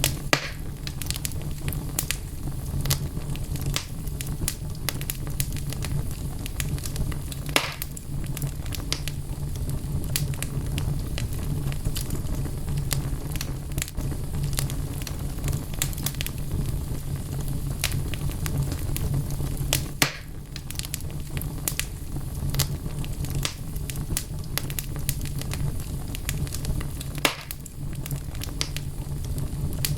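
Wood fire crackling in a fireplace: a steady low rumble of flame under constant small crackles, with a few louder pops of the burning logs, about eight seconds in, around twenty seconds and near the end.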